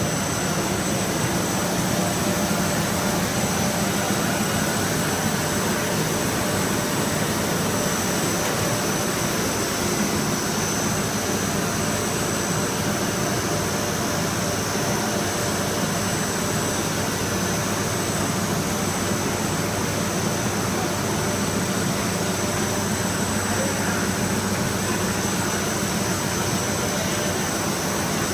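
Automatic PE plastic bag cutting machine running steadily: a continuous mechanical hum with two thin, high, steady whines over it.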